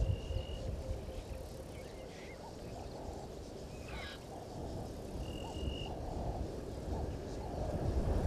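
Outdoor waterhole ambience: frogs calling with short, rising notes repeated about once or twice a second over a low rumble of wind on the microphone. Two brief, steady, high whistled notes stand out, one at the start and one about five seconds in.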